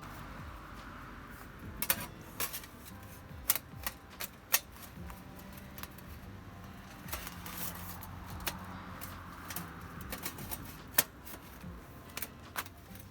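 Scattered light clicks and taps at irregular intervals, over a faint low hum.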